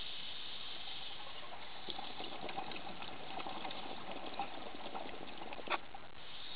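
Underwater, a scuba diver's exhaled bubbles gurgle and crackle for a few seconds, starting about two seconds in, over a steady hiss. One sharp click comes near the end.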